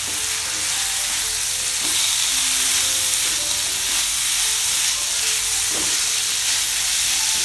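Tempe strips sizzling in spice paste in a hot wok while being stir-fried and turned with a silicone spatula: a steady frying hiss with the scrape and shuffle of the stirring.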